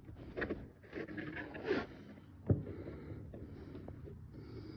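Phone camera being handled and settled into its stand: rubbing and knocking against the mic, a sharp click about halfway, then a low steady hum.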